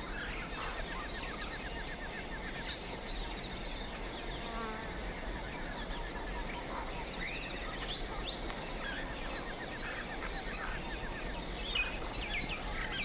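Insects trilling in rapid, even pulses, with a few short bird chirps scattered through, over a steady background hiss.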